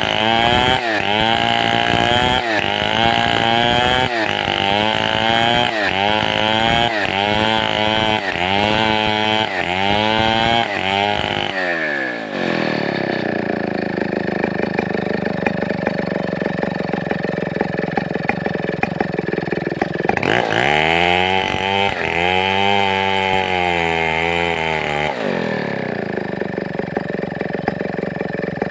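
Large two-stroke 070/707 chainsaw running at high revs, its pitch dipping and recovering about once a second, then dropping to idle about twelve seconds in. It revs up again for about five seconds and falls back to a steady idle.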